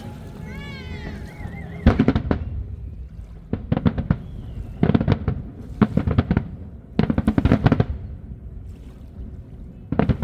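Fireworks crackling in about six quick bursts of rapid pops, a second or so apart. A warbling whistle wavers in the first second or so.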